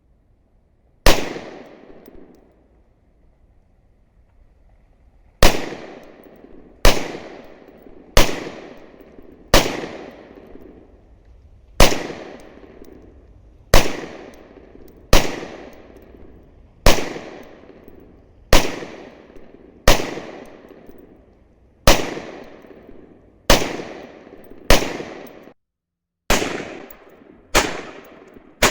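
AR-15 rifle firing single, deliberate shots, about sixteen in all, spaced one to two seconds apart, each followed by a short echoing tail. After the first shot, about a second in, there is a pause of about four seconds before the steady string of shots resumes.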